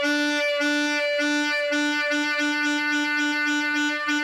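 Alto saxophone trilling between middle B and high B, the note popping up and down the octave a few times a second, unevenly. The clean drop back to the lower octave is the sign of a loose enough embouchure.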